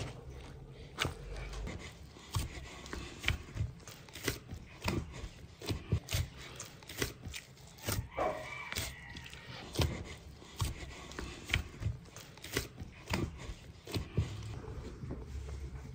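Hand food preparation: a run of light, irregular knocks and taps, about two a second, as of food being worked or cut on a board. A brief higher squeak-like sound comes a little past the middle.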